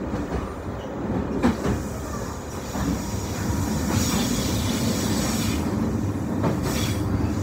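Passenger train running on the rails, heard from inside the carriage: a steady rumble of wheels on track with scattered clicks, and a high wheel squeal rising in about four seconds in and fading a second or two later.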